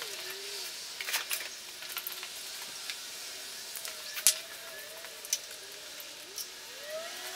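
Scattered sharp metallic clicks and clinks of bolts, tools and the motorcycle's metal sprocket cover being handled, the loudest about four seconds in. A faint wavering whine glides up and down in the background.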